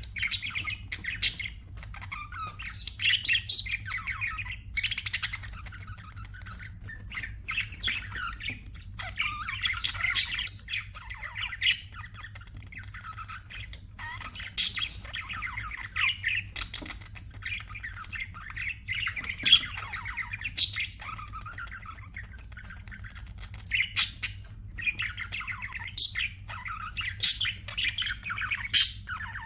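Pet budgerigars chirping and chattering in uneven bursts of short, high warbling calls, with sharp squawks among them.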